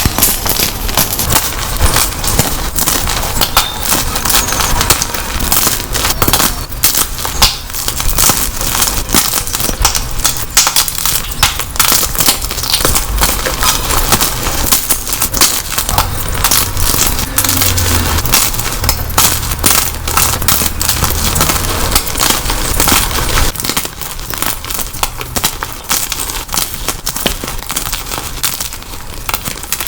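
Dyed gym chalk blocks being crushed, with dense, continuous crunching and crackling.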